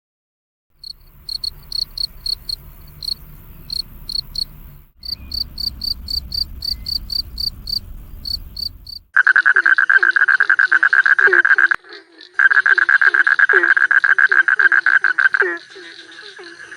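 Cricket chirping in quick high-pitched pulses over a low rumble, then, about nine seconds in, a louder rapid trilling call with a low croak repeating about twice a second, typical of a calling frog; the trill breaks off briefly partway through.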